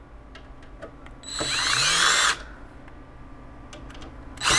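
Cordless drill on a low torque setting, driving out the fan screws on a bitcoin-mining ASIC. About a second in, the motor runs for about a second with a rising whine as it spins up. It stops, and a second run starts near the end.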